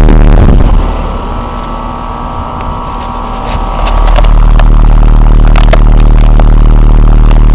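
Payne HVAC unit with a three-blade fan running: a steady low hum with steady tones over it. It drops in loudness about a second in and comes back up to full level about four seconds in.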